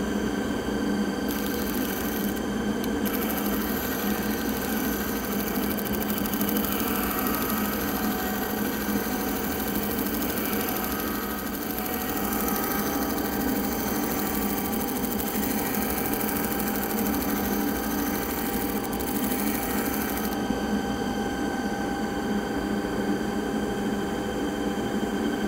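Stationary disc sander running steadily, with a hiss of sanding while a small cocobolo drawer pull is held against the abrasive disc. The sanding hiss stops about 20 seconds in as the piece is lifted away, and the motor keeps running.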